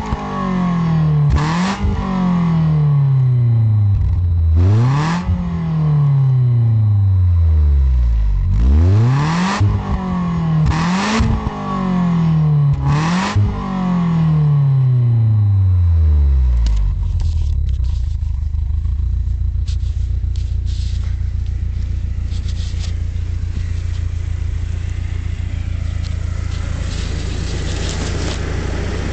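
BMW E36 318is four-cylinder engine through its stock exhaust, revved five times in quick blips with the revs sliding back down after each, then settling to a steady idle a little past halfway.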